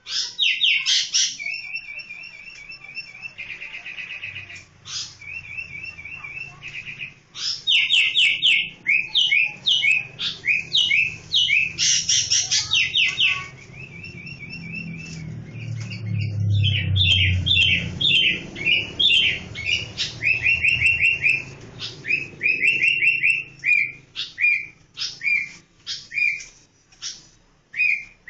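Sooty-headed bulbul calling: loud phrases of quick, bright chirps repeated over and over with short pauses between them.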